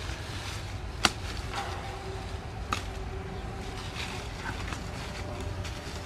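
Two sharp chops of a knife blade into the woody base of a bush, about a second and a half apart, the first the louder, with light rustling of leaves and brush over a steady low rumble.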